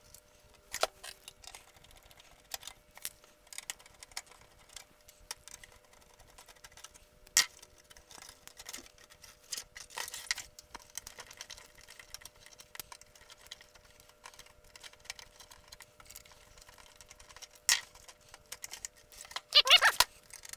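Screws being taken out of a circuit board and the board worked loose from a sheet-metal chassis: scattered light clicks and ticks, a sharp knock twice, and a louder burst of rattling and scraping near the end as the board comes free.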